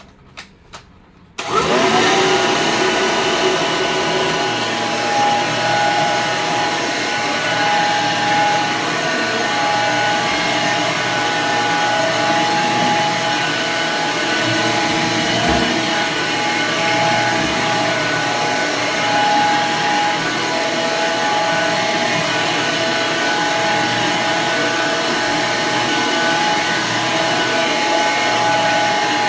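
Red Hoover vacuum cleaner's electric motor switched on after a couple of clicks. It spins up within about half a second to a steady whine and runs on at full speed.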